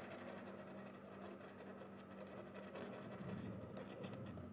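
Faint scraping of a steel sewing-machine needle rubbed against a scissor blade to grind a sharp point back onto the bent needle, over a low steady hum. A few light clicks come near the end.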